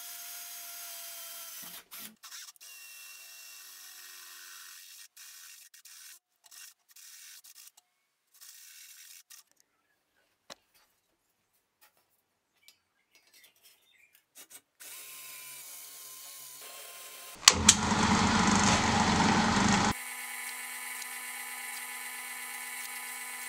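Electric drills boring into steel sheet: a handheld drill runs for a couple of seconds and then in short stop-start bursts. Later there is a loud harsh burst of about two and a half seconds, the loudest part, and then a drill press runs with a steady hum with its bit in a steel plate.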